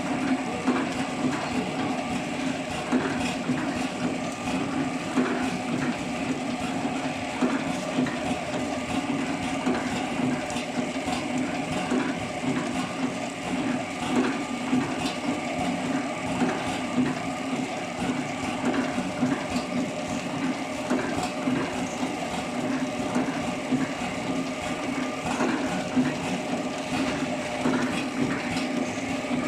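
Horizontal flow-pack packaging machine for playdough running steadily: a constant low hum with continual irregular light clicking and clatter from its mechanism.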